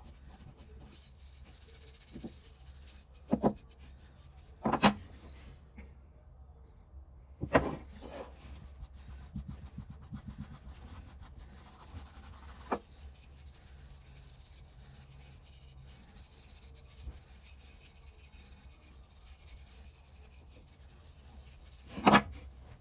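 Hand-tool work: a handful of sharp knocks and clacks, spread out, over faint rubbing, with a steady low hum underneath.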